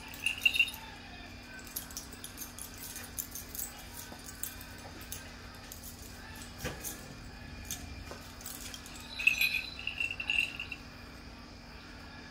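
Dance regalia clicking and jangling as it is handled: the beads of a hairpipe bandolier and a belt's metal conchos. There are scattered light clicks throughout, with louder ringing jingles about half a second in and again around nine to ten seconds in.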